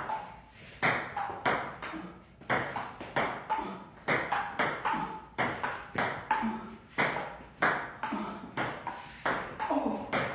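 Table tennis rally: the celluloid ball clicking off the paddles and bouncing on the table in a steady back-and-forth, about two short sharp hits a second.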